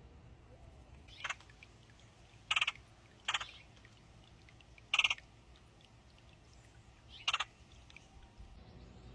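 A bird gives five short calls, spaced one to two seconds apart, over a low background hum.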